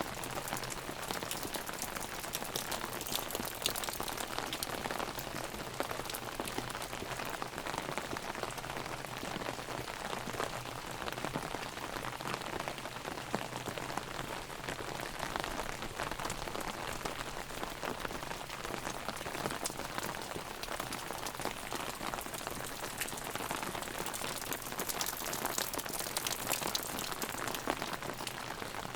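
Heavy rain drumming on an umbrella held overhead, a steady dense patter of countless drops hitting the canopy.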